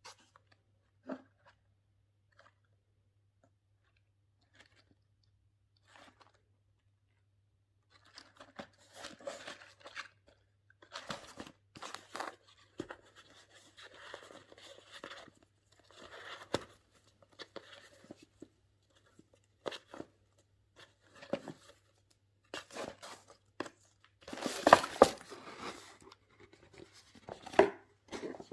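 Wrapping and packaging of a box of Elit Gourmet Collection truffles being handled and torn open by hand: irregular crinkling, tearing and crackling with sharp clicks. A few faint clicks come first, the handling starts about eight seconds in, and the loudest burst of tearing comes near the end.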